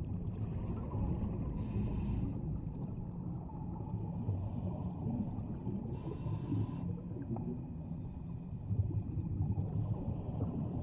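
Underwater sound of scuba divers breathing through their regulators: a steady low underwater rumble, with a hissing, bubbling breath twice, a few seconds apart.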